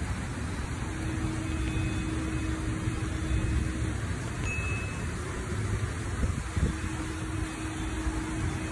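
Floodwater rushing through a street, a steady low rumbling wash of noise, with a faint steady tone that comes in twice.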